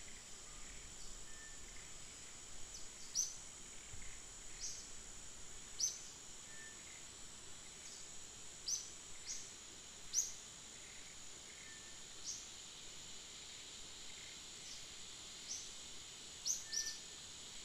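Outdoor ambience: a steady high-pitched insect drone, with short high chirps about ten times at uneven intervals of a second or two, the loudest near the start, a little before the middle and at the middle.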